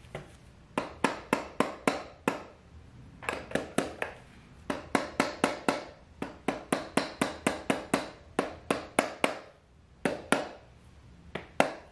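Quick, sharp taps or knocks, about five a second, in runs of a few to eight with short pauses between runs.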